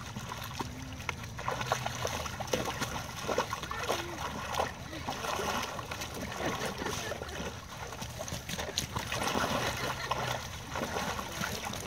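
Water splashing and sloshing in a plastic kiddie pool as a dog paws and stomps in it, in an irregular run of splashes.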